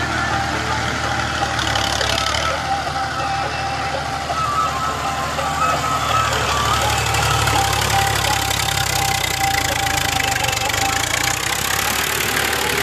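Ghazi farm tractor's diesel engine running steadily under load while it pulls a spring-tine cultivator through the soil.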